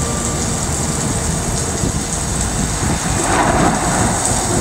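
Steady rain with a rumble of thunder, swelling about three seconds in.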